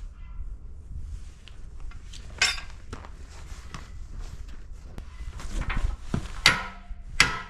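Scattered metallic clanks and knocks, with a few sharp, ringing metal strikes near the end.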